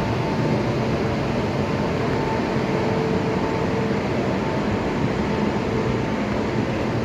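Steady mechanical rumble of a stationary train, with a constant hum running through it.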